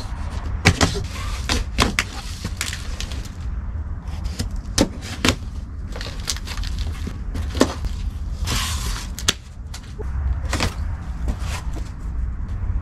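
A large corrugated cardboard box being cut open along its side and pulled apart: sharp clicks and cracks scattered throughout, with a short rasping tear about two-thirds of the way through.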